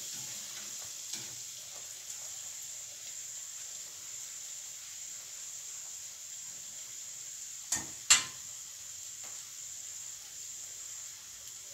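A breadcrumb-coated scotch egg deep-frying in hot vegetable oil in a small saucepan: a steady sizzle of bubbling oil. Two sharp clinks come about eight seconds in.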